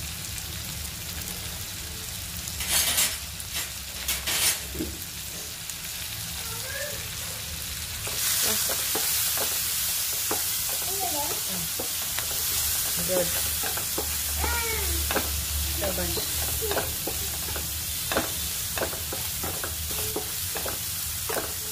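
Chopped onions and green chillies frying in oil in a non-stick pan, sizzling, while a wooden spatula stirs and scrapes against the pan. The sizzle grows louder about eight seconds in, once the onions are stirred down into the hot oil, with quick repeated scrapes of the spatula after that.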